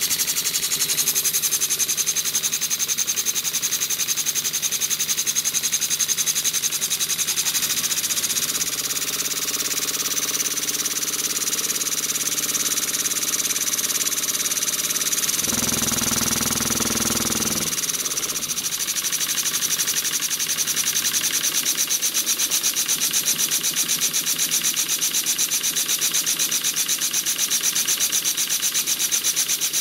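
Small two-cylinder model steam engine running on one cylinder: a fast, even pulsing hiss of exhaust beats. It is running on very little pressure. A brief lower-pitched noise joins in for about two seconds a little past the middle.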